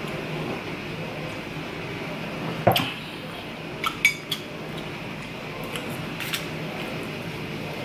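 A drink can knocked down on a table, then a quick run of clinks and taps of a metal fork against a ceramic plate, over a steady low hum.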